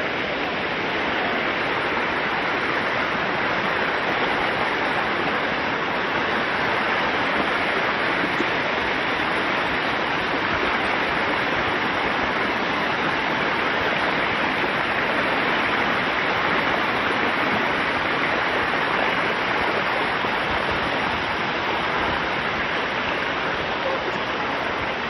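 Shallow river cascades of a waterfall rushing steadily over stepped travertine rock terraces, heard close up.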